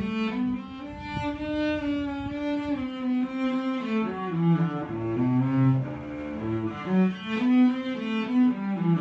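Solo cello playing a prelude: a continuous flowing run of bowed notes that step up and down in pitch, with a few louder accented notes in the second half.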